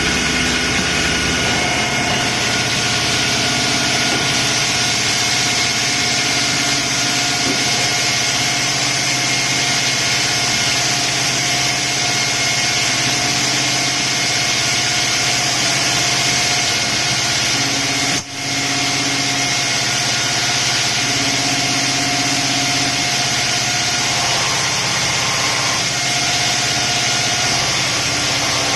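CNC automatic belt-polishing machine for pliers running: steady mechanical noise with a strong hiss and several held whining tones, some of which come and go. There is a brief dip in level about two-thirds of the way through.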